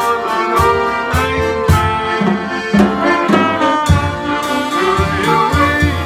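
Polka band playing an instrumental passage: piano accordions carry the melody and chords over guitar and a steady beat.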